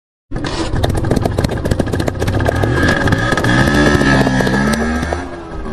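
Motor scooter engine running with rapid popping, starting about a third of a second in; its pitch wavers up and down around the middle, then it drops a little in level near the end.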